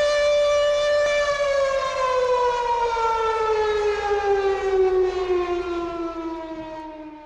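An air-raid siren wailing on one steady pitch, then slowly winding down in pitch and fading away near the end.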